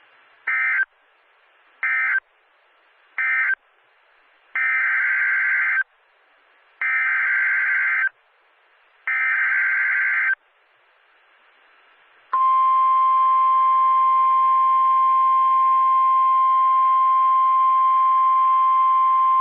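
Emergency Alert System (SAME) data bursts: three short bursts that close the thunderstorm warning, then three longer bursts of over a second each that open the flash flood warning. About twelve seconds in, a loud steady single-pitched Weather Radio alert tone starts.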